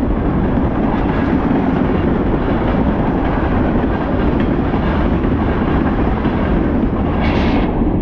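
Freight train of tank cars rolling past close by: a steady, loud rumble of steel wheels on the rails, with a brief rushing hiss about seven seconds in.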